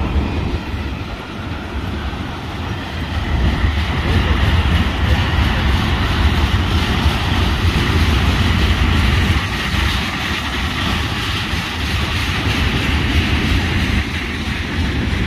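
A train rolling by with a steady rumble of wheels on rail, growing louder about three seconds in.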